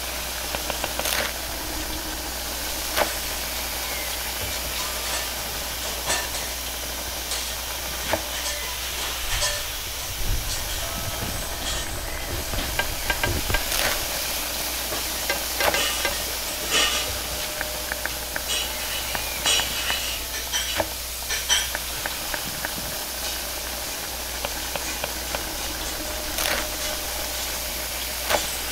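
Wok cooking over a high-powered gas burner: a steady hiss of flame and sizzling food, broken by frequent sharp clanks of a metal ladle and spatula striking and scraping the wok. The clanks come irregularly and are busiest in the middle.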